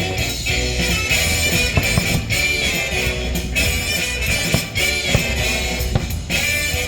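Fireworks show soundtrack music: an instrumental passage with guitar and no singing.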